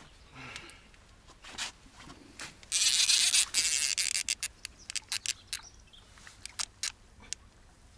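Fishing reel drag giving line to a hooked catfish: a continuous buzzing run lasting about a second and a half, starting about three seconds in, then scattered single clicks as the fish takes line in short pulls.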